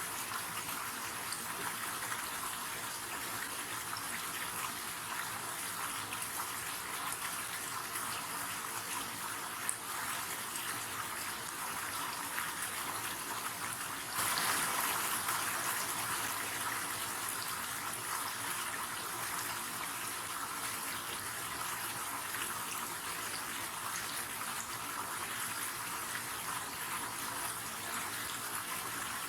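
River water rushing steadily, an even wash of noise that turns suddenly a little louder about halfway through and then eases back.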